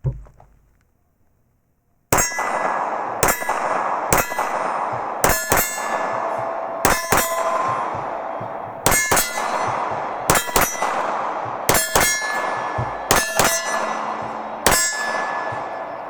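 Sig Sauer P320 9mm pistol fired repeatedly, a string of about eighteen shots starting about two seconds in. Many come in quick pairs, and each crack leaves a metallic ringing tail.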